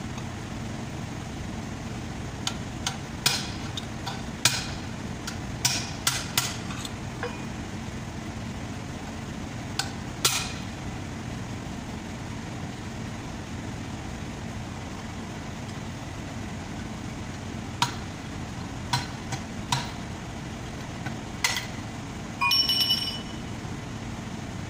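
Sharp metal-on-metal strikes in irregular clusters, a dozen or so, as a chisel held in locking pliers is hammered against the outer bearing cup inside an Isuzu truck's front wheel hub to knock it out. Near the end comes a brief ringing metallic clatter as the locking pliers are set down. A steady low hum runs underneath.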